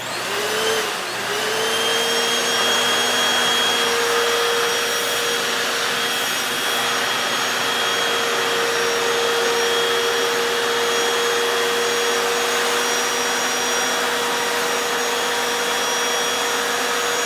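Hoover FloorMate Deluxe wet hard-floor cleaner switched on in wash mode: its suction motor and spinning scrub brushes start at once, rising in pitch over the first second or so, then run steadily with a steady whine over the suction noise. No cleaning solution is being sprayed.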